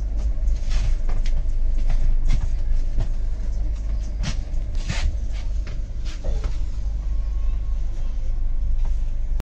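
Passenger train coach rolling slowly through a station, heard from inside: a steady low rumble with irregular clanks and knocks from the running gear.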